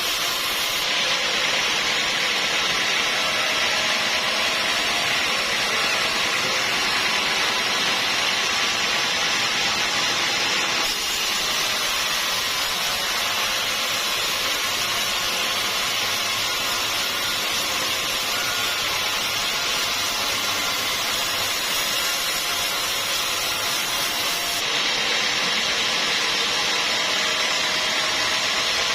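Sawmill running and sawing through a log: a steady, loud machine noise with a strong hiss. The sound changes abruptly twice.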